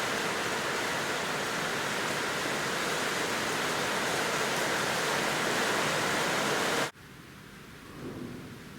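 A loud, steady rushing hiss that cuts off abruptly about seven seconds in, leaving a much quieter background.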